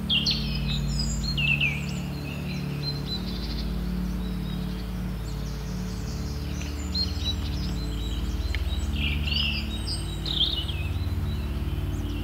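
Small birds chirping, with a few quick falling notes near the start and more from about seven seconds in, over a steady low hum of held tones.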